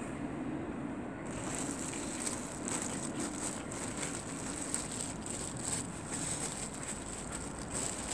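Outdoor night ambience: a steady low hum with a high-pitched, pulsing hiss that starts about a second in and keeps going.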